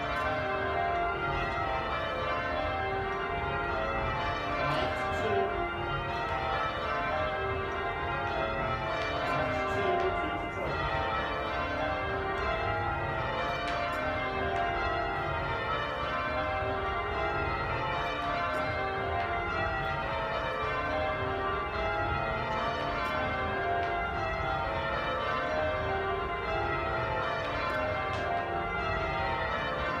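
A ring of Taylor-cast church bells being rung in changes, heard from the ringing chamber beneath them: an unbroken, evenly paced stream of overlapping bell strikes.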